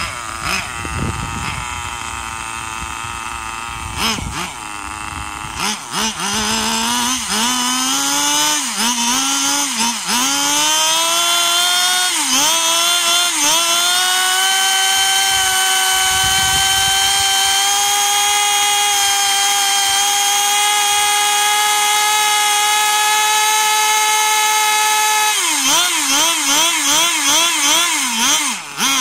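Small two-stroke nitro glow engine of a Tamiya Raikiri 1/10 RC car running with its wheels spinning free in the air. It starts low and uneven, is revved up and down in repeated short bursts, then held at high revs for about ten seconds, and is blipped quickly up and down near the end.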